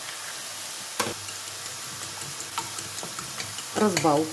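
Sliced mushrooms and onions sizzling steadily in olive oil in a frying pan, while a fork beats eggs in a bowl: a sharp click about a second in, then quick light tapping of the fork against the bowl.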